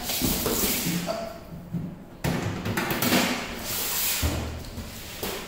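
Unboxing handling noise: a cardboard box scraping and rustling, and a metal tool carrying case being set down on a hard floor, with a sudden knock about two seconds in and a dull thump about four seconds in.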